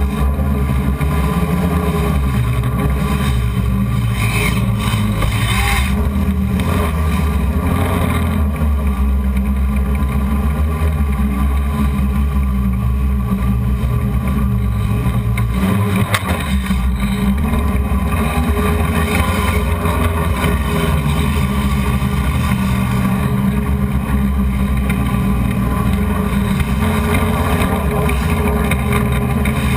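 Hexacopter's six brushless motors and 12-inch propellers running steadily in flight, heard close up through the onboard camera's microphone. The hum's pitch shifts slightly as the throttle changes.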